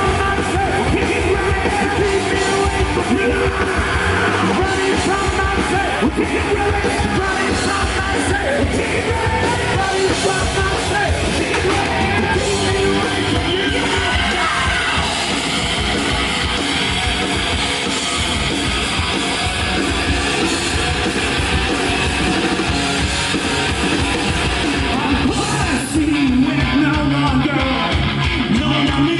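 Live rock band playing loud, distorted electric guitars with bass and drums, with a yelled vocal; about three-quarters of the way through, the music shifts to a new section.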